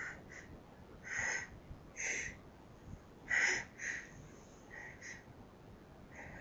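Faint short sniffs and breaths, about six separate puffs, from a person in a sneezing fit.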